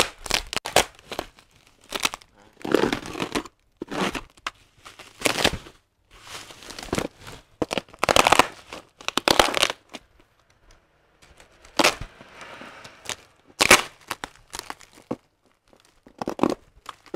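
Bubble wrap and packing tape crinkling and tearing as a parcel is cut and pulled open, in irregular bursts with a few sharp snaps.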